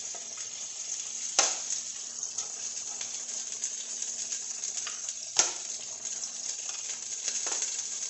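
Butter and olive oil sizzling steadily in a frying pan while chunks of browned meat are lifted out with metal tongs. Two sharp clinks of the tongs come about a second and a half in and again about five seconds in, with a few fainter taps between.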